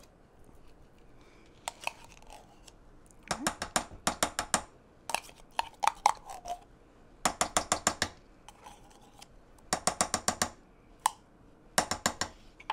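A small metal tin can of tomato paste being scraped and knocked to work the thick paste out into a crock pot. The sound comes in about five bursts of quick metallic clicks, each about a second long.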